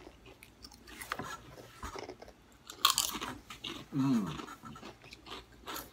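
Kettle-cooked russet potato chips being crunched and chewed: irregular sharp crunches about a second in, near three seconds (the loudest) and near the end, with a brief falling 'mm'-like vocal sound about four seconds in.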